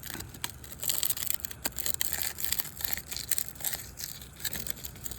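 Three-tab asphalt shingles being pried and scraped apart with a prying tool: a run of scraping, crackling and tearing sounds. The sealant bond is stronger than the shingles themselves, so the shingle rips rather than lifting free.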